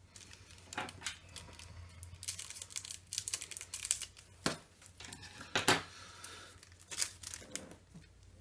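Foil trading-card booster pack being torn open and crinkled: a run of short, sharp crackles and rips, the loudest a little past halfway.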